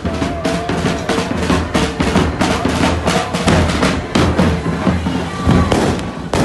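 Marching band drums beating a fast, dense rhythm, with snare and bass drum.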